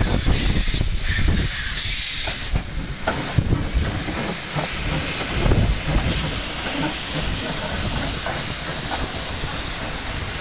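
Steam locomotive letting off steam with a loud hiss that eases about two and a half seconds in. The train then rumbles along the track, slowly fading.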